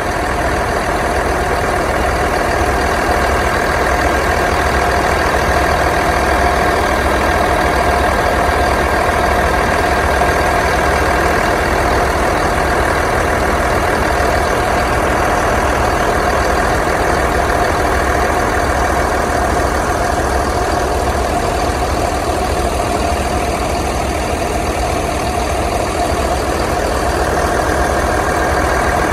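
Underfloor diesel engine of a Class 170 Turbostar unit, an MTU six-cylinder, idling steadily at close range with a regular low throb.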